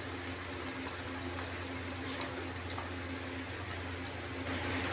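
Faint scraping of a serving spoon through thick duck roast in a metal pan, with a few light clicks, over a steady low hum.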